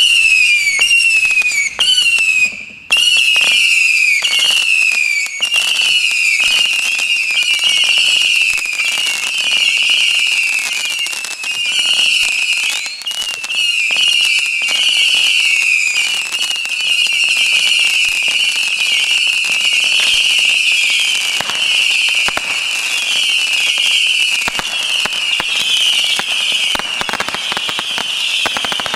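A 750-shot Saturn missile battery firing: an unbroken stream of small whistling missiles, each whistle dropping slightly in pitch, about two a second, over a patter of sharp launch pops.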